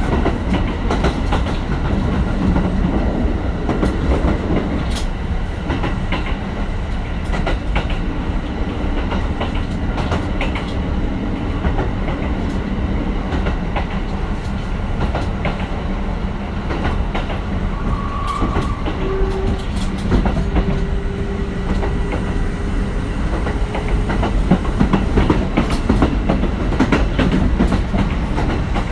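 Running sound of a Kintetsu 1420 series electric train with Mitsubishi GTO-VVVF inverter control, heard from inside the car: a steady low rumble of wheels on rail with frequent rail-joint clicks. Partway through, a faint whine rises slightly in pitch for a few seconds.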